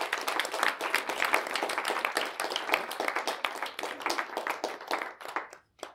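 Audience applauding a performer's entrance, the clapping dying away near the end.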